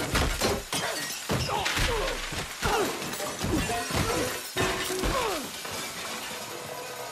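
Film sound effects of a kitchen wrecked all at once: glass shattering and metal pots and pans crashing to the floor and ringing, with ringing tones that fall in pitch. The hits are loudest at the start and keep coming for about five seconds, then die down.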